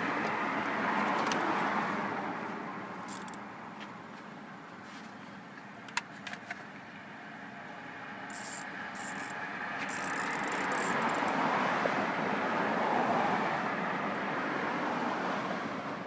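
Road traffic passing by, swelling and fading twice, with a few sharp clicks about six seconds in.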